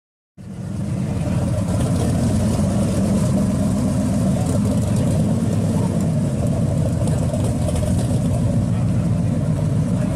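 Custom 1957 Chevrolet hot rod's engine running at idle with a steady, deep exhaust rumble as the car creeps along; the sound starts abruptly about half a second in.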